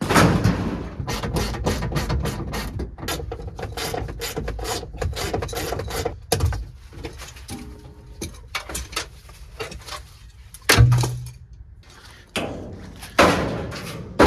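Rapid mechanical clicking, about five clicks a second, for roughly six seconds, then slower scattered clicks and one heavy thump about eleven seconds in.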